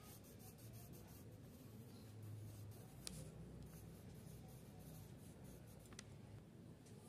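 Faint scratching of a graphite pencil drawing on paper, with a couple of light ticks about three and six seconds in.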